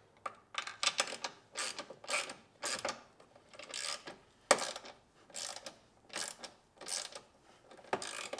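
Hand ratchet with a long 10 mm socket running a nut down onto a bolt. A rasp of pawl clicks comes with each swing, about every two-thirds of a second, with one sharper clack about halfway.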